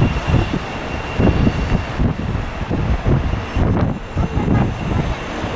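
Boeing 777 twin-jet airliner at takeoff power, rolling down the runway and lifting off: a continuous heavy jet rumble that swells and ebbs unevenly. A faint thin high whine fades about two seconds in.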